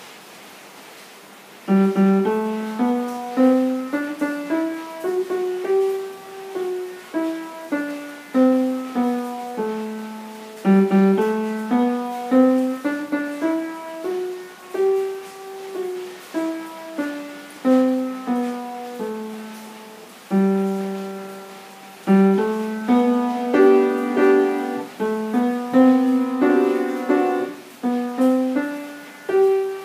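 Upright piano played with both hands: a melody of struck notes over lower held notes, each note fading after it sounds, beginning about two seconds in.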